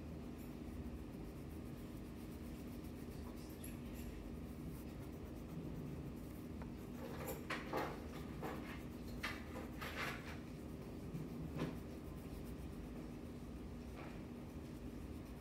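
Wax crayon rubbing on paper in a run of short strokes, most of them between the middle and about three-quarters of the way through, over a faint steady hum.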